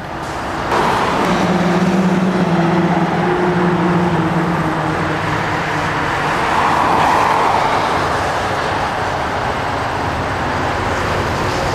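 Steady road-traffic noise, with one vehicle's engine hum passing and fading over the first few seconds.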